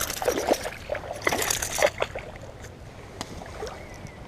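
Water splashing and sloshing as a hooked largemouth bass thrashes at the surface during the first two seconds, then dying down to light water noise.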